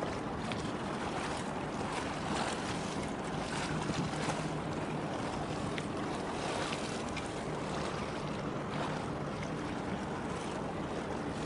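Harbour tug passing close, with a steady low engine drone and the wash of water along its hull, mixed with wind on the microphone.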